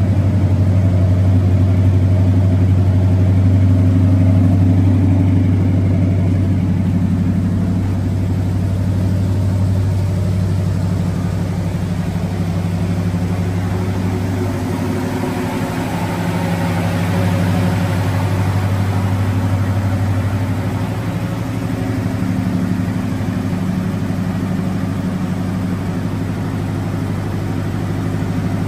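1968 Buick Skylark's 455 V8 engine idling steadily.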